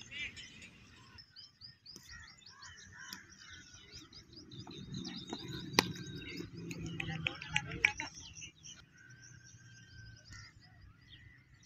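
Small birds chirping and twittering throughout, with one sharp crack about six seconds in, a cricket bat striking the ball.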